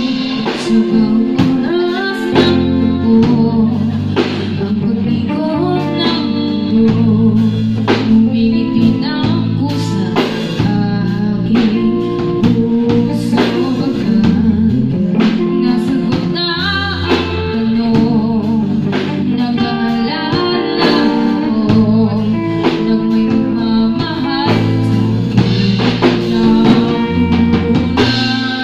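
Live band playing a song: a woman singing into a microphone over bass guitar, electric guitar and drum kit, amplified through the stage speakers.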